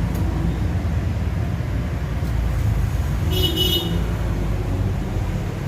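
Steady low rumble of road traffic, with a brief high toot about three and a half seconds in.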